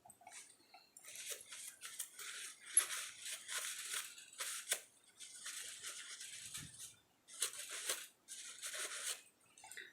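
Fingertip rubbing eyeshadow onto the skin of an arm: a run of soft, hissy rubbing strokes, five or so, each a second or two long with short pauses between.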